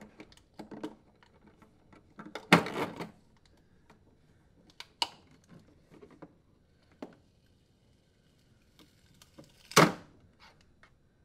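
Scattered knocks, clicks and light rustling as an old corrugated plastic refrigerator drain tube is pulled free and handled against the cabinet, with two louder knocks, one about two and a half seconds in and one near the end.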